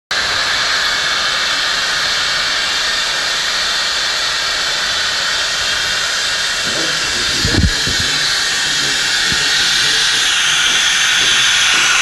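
Steady hiss of hydrogen flowing into a weather balloon envelope as it is inflated for a radiosonde launch, growing a little louder near the end. A short low thump about seven and a half seconds in.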